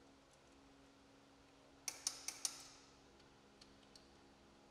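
A socket wrench ratcheting: a quick run of about five clicks, about two seconds in, as a fastener is driven in.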